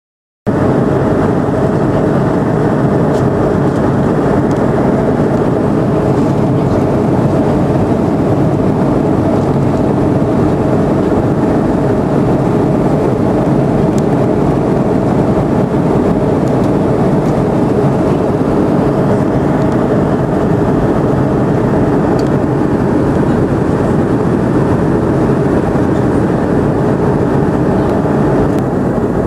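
Steady drone of a jet airliner in flight, engine hum and rushing air heard from inside the passenger cabin. It starts abruptly about half a second in.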